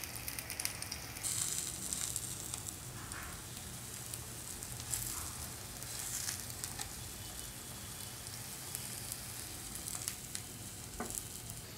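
Soya seekh kebabs on wooden skewers shallow-frying in a little oil on a nonstick tawa over a low-to-medium flame: a steady, soft sizzle with fine crackles.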